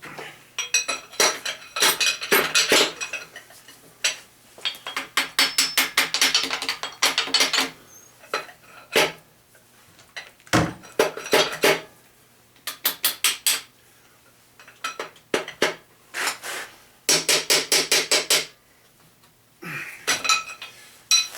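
Hammer tapping on a stuck connecting-rod cap of a 350 V8 short block, in bursts of sharp metal strikes, some quick runs of about six or seven a second, with short pauses between. A cap that won't come off like this is, to the mechanic, usually a bad sign.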